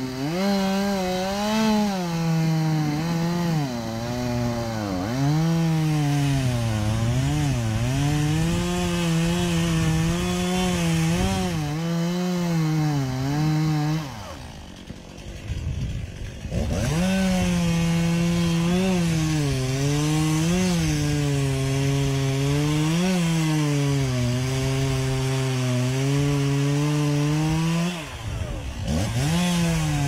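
Two-stroke chainsaw running at high revs while cutting into a tree near its base, its pitch sagging and recovering over and over as the chain bites into the wood. The throttle is let off to idle for about two seconds midway, then revved back up, and is eased off briefly again near the end.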